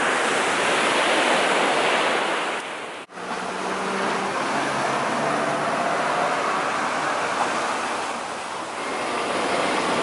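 Ocean surf with wind buffeting the microphone. It cuts off abruptly about three seconds in, and steady street noise with vehicle engine hum follows.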